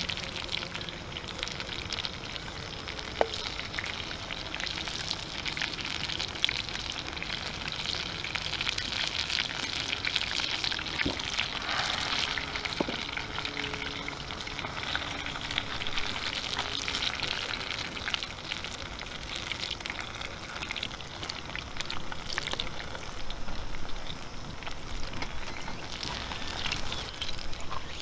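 Hot oil sizzling and crackling steadily as food deep-fries, with scattered sharper pops.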